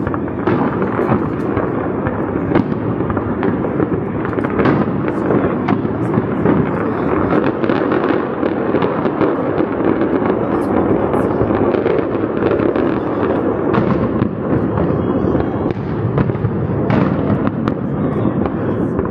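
Aerial fireworks bursting in quick succession: a dense, continuous mass of bangs and crackling.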